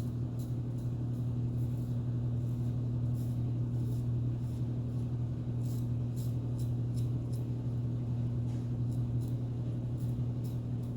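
A series of short, light strokes of a safety razor (a 1961 Gillette Aristocrat with a Statum blade) cutting lathered stubble, coming irregularly, several a second at times. A steady low hum runs underneath.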